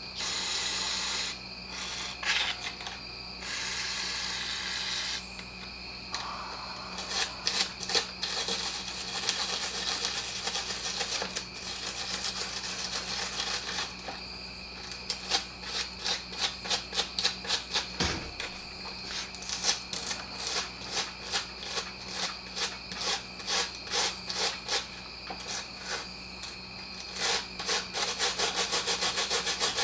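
Scraping strokes cleaning out the restricted muffler of a Husqvarna 125B two-stroke leaf blower. Longer scrubbing passes in the first half give way to short, regular strokes at about two a second that quicken near the end.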